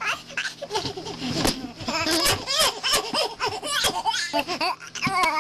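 Young people shrieking, yelping and laughing without words as they ham up a mock spasm fit, picked up by a webcam microphone, with scattered knocks and bumps among the cries.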